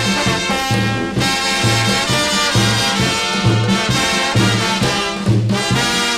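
Instrumental break of a Brazilian carnival marchinha: a brass band with trombones and trumpets playing over a steady, regular bass beat, with no singing.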